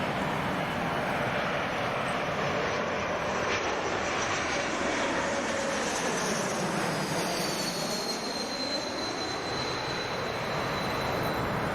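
Airliner's jet engines passing: a steady rush with a high whine that falls in pitch about six seconds in and then holds steady.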